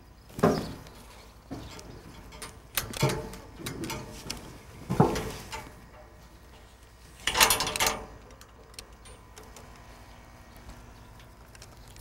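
A handful of separate knocks and clunks with some rustling, from a seat belt convincer's sled seat as a person climbs into it and is buckled in with its seat belt.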